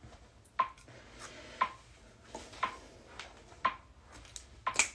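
A series of short sharp clicks or taps, the loudest about once a second, with fainter ones in between.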